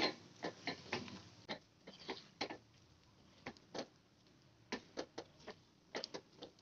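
Irregular light clicks and taps of a spatula and a wire mesh strainer against a frying pan as fried anchovies are scooped out of the oil, about a dozen scattered knocks.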